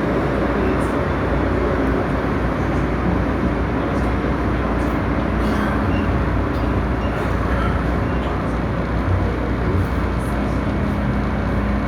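Steady running noise inside an MTR M-train electric multiple unit in motion: the low rumble of wheels on rail and car noise holds even, with no stops or chimes.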